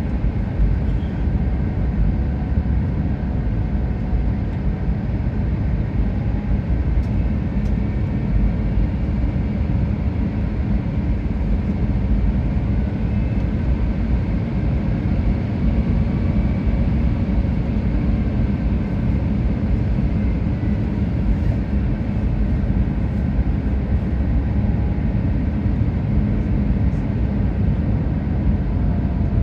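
Steady cabin noise inside an Airbus A350 on approach to landing: airflow rushing past the fuselage and the low hum of its Rolls-Royce Trent XWB engines, with a few faint steady tones above the rumble.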